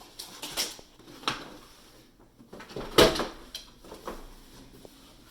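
Hard plastic parts of an automatic litter box being handled, a series of clacks and knocks, the loudest about three seconds in.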